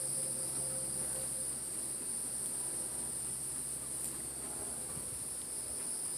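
Steady, high-pitched chorus of insects such as crickets, an unbroken shrill drone.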